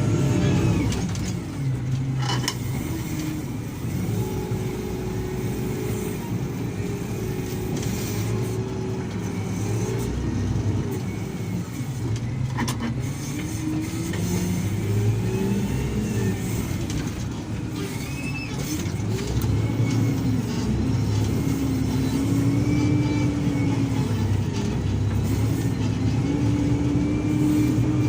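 Heavy diesel engines of a Doosan 340 excavator and an SDLG wheel loader working, the engine note rising and falling with load, with a couple of sharp knocks.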